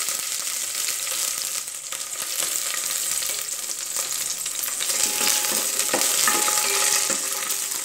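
Cashew nuts and raisins sizzling steadily in hot ghee in a stainless steel pot, stirred with a plastic spoon that scrapes and taps against the pot now and then.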